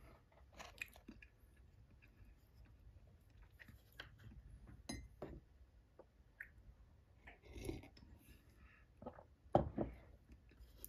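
Quiet eating sounds: soft chewing and light clicks of wooden chopsticks against a wooden bento box. Near the end come a couple of louder knocks as a ceramic mug is handled on the table.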